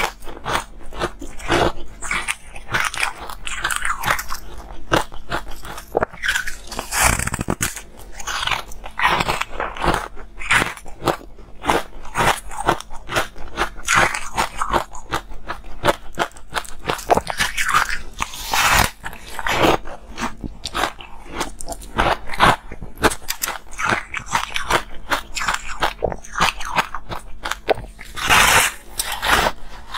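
Close-miked biting and chewing of a block of porous, foamy ice: a continuous run of crisp crunches and crackles, several a second.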